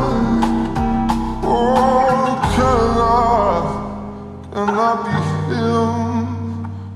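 Slowed-down, reverb-heavy pop song: a male voice singing a line over guitar and bass.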